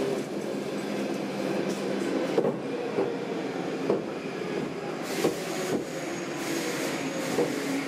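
Stockholm metro C6 carriage rolling slowly through a station, heard from inside the car: a steady rumble of the running gear with a scatter of short wheel knocks. In the second half come short bursts of hissing air.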